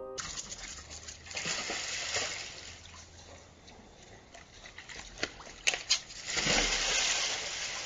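Water sloshing and splashing in a hot tub, with a few sharp knocks about five to six seconds in and louder splashing near the end as a man steps into the water.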